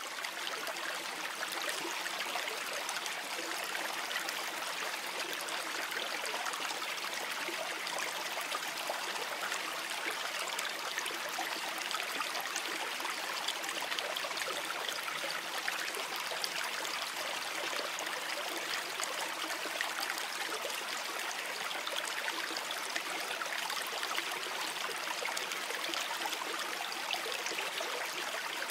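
Babbling brook: water flowing over stones in a steady rush.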